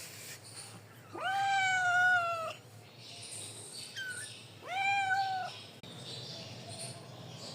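Kitten meowing twice: two long, high-pitched meows a few seconds apart, with a brief squeak between them.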